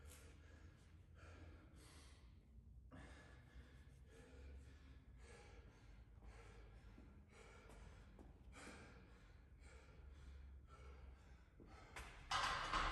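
A man's heavy breathing as he catches his breath between sets of a hard workout: faint, deep breaths, about one a second. A much louder sound comes in shortly before the end.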